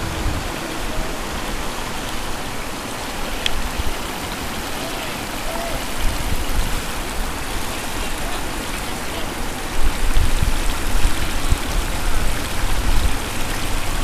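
Whitewater of the Nantahala River rushing steadily over rocks.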